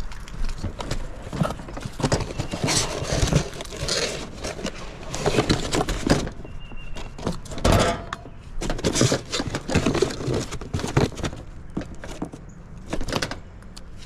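Irregular knocks, clicks and rustles of parts being handled: a new condenser fan motor lifted from its cardboard box and handled with its fan blade on the sheet-metal top of a heat pump's outdoor unit.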